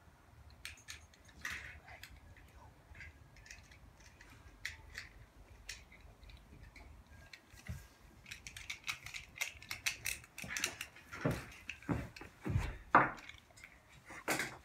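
Small hard plastic clicks and clatters of Beyblade tops being handled and swapped, sparse at first and busier in the second half, with a few dull thumps near the end.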